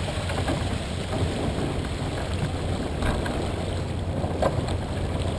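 Wind buffeting the microphone over the rush of water along a sailboat's hull under sail, with two faint knocks about three and four and a half seconds in.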